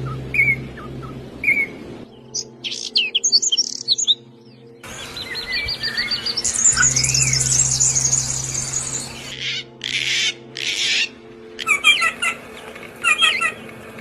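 Songbirds chirping and singing in a string of abruptly spliced recordings: repeated short chirps, then a fast high trill, then clusters of quick paired notes.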